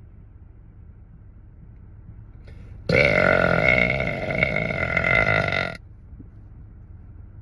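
A man's long, loud burp, starting about three seconds in and lasting nearly three seconds, over a steady low rumble inside a car.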